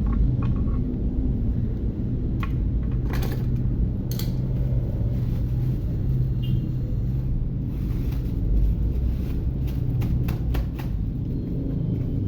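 A steady low rumble or hum, with a few short clicks and taps over it.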